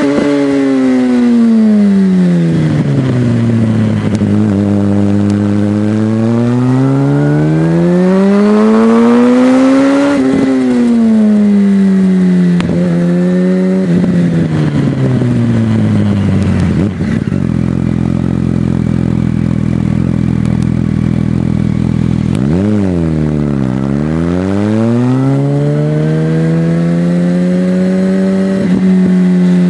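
Yamaha supersport motorcycle's inline-four engine heard on board, its pitch falling as the throttle is rolled off into bends and climbing again on the throttle out of them. There are a few sudden breaks in pitch at gear changes, a steady stretch of cruising partway through, and a quick drop and climb near the end.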